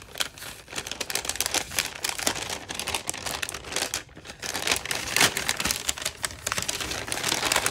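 Paper gift bag crinkling and rustling as it is unfolded and opened by hand, with many small irregular crackles as the paper is handled and a hand reaches inside.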